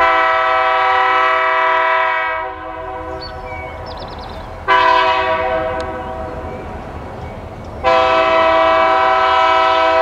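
Multi-chime air horn of an approaching Allegheny Valley Railroad GP40-3 diesel locomotive sounding three blasts: a long one, a shorter one about halfway through, and another long one near the end.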